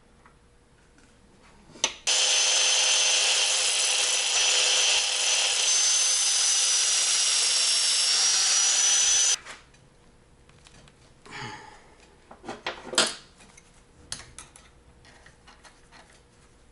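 Angle grinder running for about seven seconds as it grinds through metal clamped in a vise, its high whine dipping slightly under load before it stops. A few short knocks follow.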